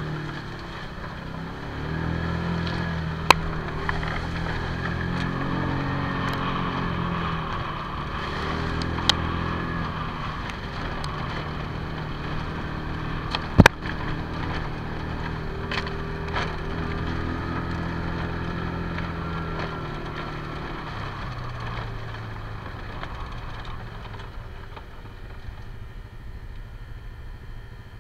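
Side-by-side utility vehicle's engine running as it drives over rough ground, its pitch rising and falling with the throttle. A few sharp knocks from the vehicle jolting, the loudest about halfway through.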